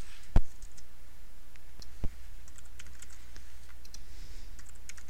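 Computer keyboard being typed on: two single knocks early on, then a quick run of keystrokes in the second half, over a low steady hum.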